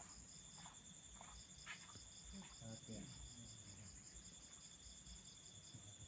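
Faint, steady high-pitched trilling of night insects, pulsing about six times a second, with a second steady high tone that drops out for a stretch and returns.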